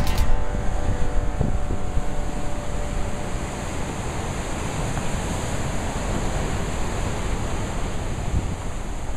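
Surf breaking on a rocky shore: a steady rush of waves, with wind buffeting the microphone.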